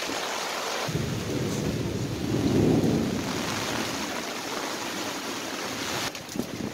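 Heavy rain pouring in a thunderstorm. About a second in, a rolling peak of thunder rumbles in, swells and slowly dies away.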